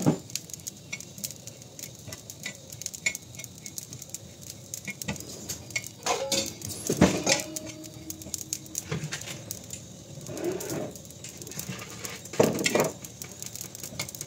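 Metal spoon scraping and stirring cumin seeds as they dry-roast on a hot tawa: a steady patter of small clicks. There are louder scrapes about six to seven seconds in and again about twelve and a half seconds in.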